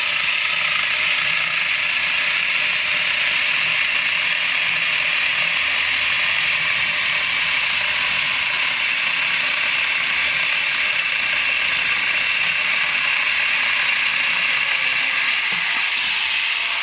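Cordless power tool running steadily with a continuous mechanical whirr that holds an even level throughout.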